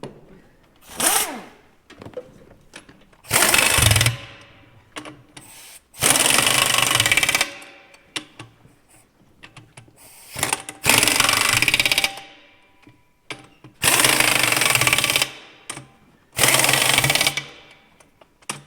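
Impact wrench hammering in about six bursts of a second or so each, running the bolts in on a tractor's dual wheel.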